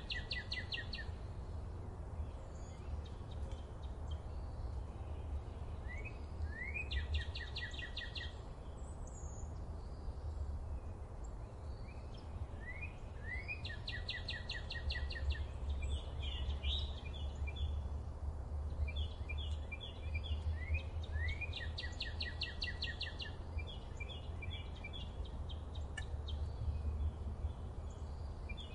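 Songbirds singing: a phrase of a few quick rising notes followed by a fast trill repeats about every seven seconds, with shorter series of chirps between, over a steady low rumble.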